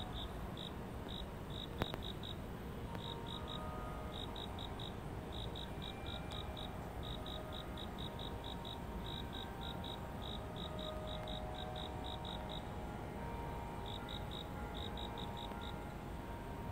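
Insect chirping: quick high pulses at one steady pitch in groups of three or four, repeating over and over, with a short break near the end.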